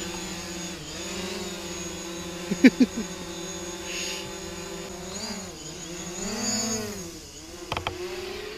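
Quadcopter drone flying overhead, its propellers making a steady multi-toned buzz that dips and rises in pitch between about five and seven seconds in as it manoeuvres. A few sharp clicks about two and a half seconds in.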